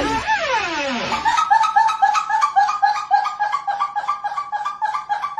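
A high-pitched voice glides down, then breaks into a rapid run of short, evenly spaced laugh-like pulses at a steady pitch, about four or five a second.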